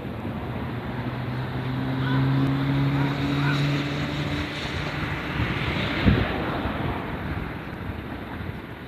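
A train running: a steady rumble with a low hum that holds for a few seconds, and a single sharp knock about six seconds in.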